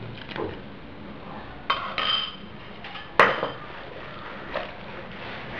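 A small bowl knocking against a ceramic mixing bowl while milk and yeast are emptied into flour: a couple of clinks about halfway through, then a sharper, ringing clink a second later. Hands rub and rustle through the crumbly flour-and-butter mixture.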